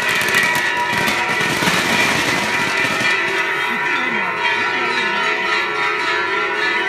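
Festival fireworks spraying sparks, a dense crackling hiss that eases about three seconds in, over steady ringing of bells and crowd voices.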